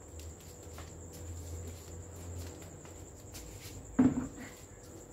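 Crickets chirping in a steady, high, pulsing trill. About four seconds in there is one sharp knock as the plant pots are handled.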